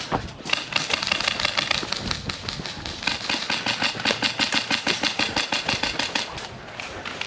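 Airsoft guns firing rapidly, a fast even rattle of shots with a short dip about three seconds in, stopping shortly before the end.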